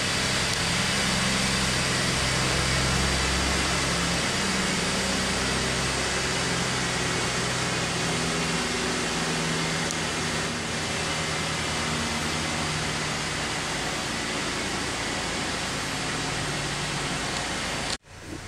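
Steady rushing hiss with a low hum underneath, like a ventilation fan running. It cuts off suddenly near the end.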